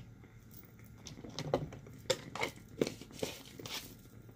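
Irregular rustling, crinkling and light clicks from hands working oil into the feet and handling the products.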